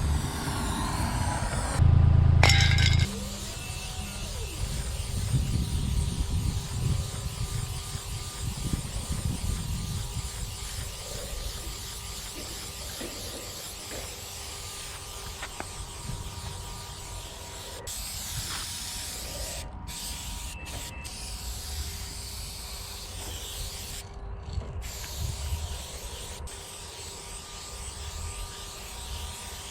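Aerosol spray-paint can with a wide fat cap hissing as paint is sprayed, the hiss stopping briefly a few times between strokes. A loud low rumble about two seconds in lasts about a second.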